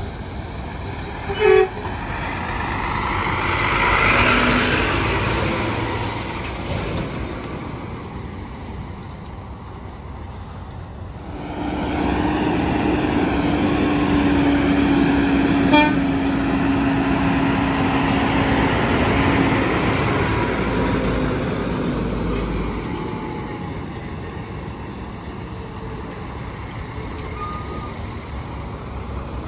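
Tractor-trailers passing on an interstate highway: tyre and engine noise swells and fades as one goes by about four seconds in, and another, with a steady hum, passes from about twelve to twenty seconds in. A short, loud vehicle horn toot sounds about one and a half seconds in.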